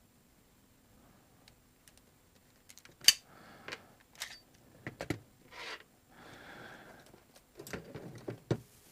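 Sharp clicks and clacks of an airsoft Colt 1911 pistol's parts being handled and stripped down, with short sliding and rubbing sounds between them. One click a little after three seconds in is the loudest.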